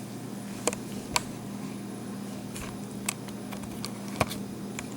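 About six light, sharp clicks and taps spread over a few seconds, the strongest about four seconds in, over a steady low hum.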